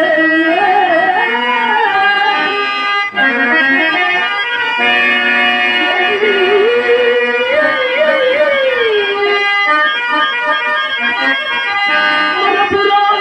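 Male stage singer drawing out a Telugu padyam (verse) in a slow, heavily ornamented melodic line over sustained harmonium chords, with a short break about three seconds in.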